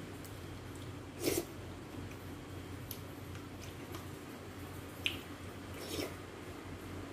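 Eating fruit jelly from a plastic cup with a metal spoon: a short squishy slurp about a second in, a sharp spoon click against the cup about five seconds in, and another short slurp as the spoon goes to the mouth a second later.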